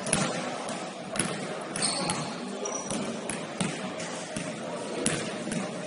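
A basketball bouncing on a gym floor in irregular thuds during play, over indistinct voices, with a brief high squeak about two seconds in.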